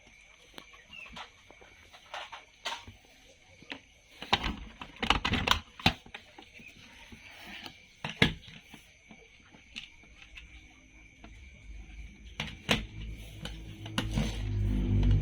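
Irregular clicks and knocks of plastic toy vehicles and packaging being handled, with a low hum starting near the end that is the loudest part.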